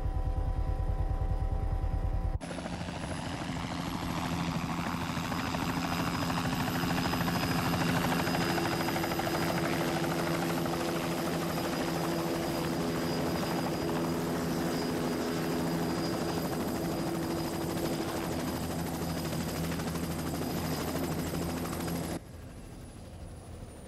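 Bell 206 JetRanger turbine helicopter running close by as it hovers and touches down: a steady high turbine whine over the engine and rotor noise. It opens with a rapid low rotor thumping, cuts abruptly about two seconds in to the louder close-up turbine sound, and drops away suddenly near the end.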